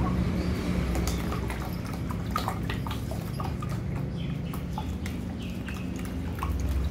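Puppies lapping water from a plastic tub: quick, irregular wet clicks over a steady low rumble.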